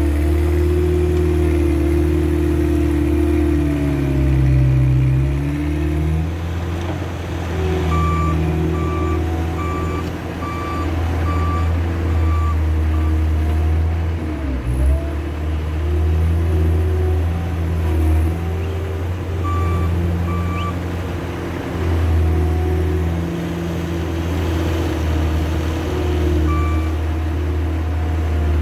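Case skid steer loader's diesel engine running steadily, its pitch shifting under load. The backup alarm beeps at about two a second in short runs while the machine reverses.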